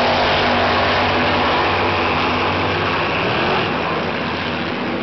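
Supercharged front-engine dragster running hard down the drag strip, a loud dense engine howl that fades as the car pulls away, dropping off about three and a half seconds in.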